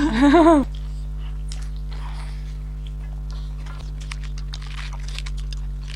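Close-miked eating: faint chewing, mouth clicks and small crunches, scattered and growing busier in the second half, over a steady electrical hum. A voice speaks briefly at the very start.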